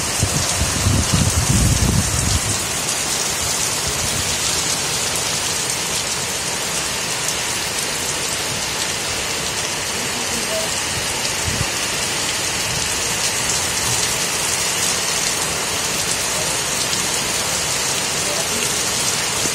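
Heavy rain pouring down, a dense, steady hiss of rain on the pavement and parked cars. A low rumble sits under it for the first two seconds or so.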